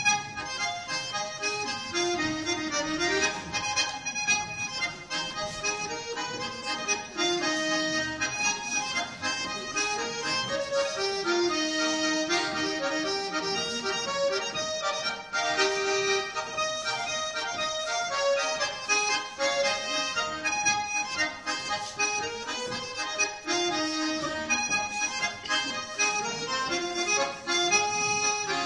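A solo accordion plays a lively folk dance tune, striking up right at the start and continuing without a break.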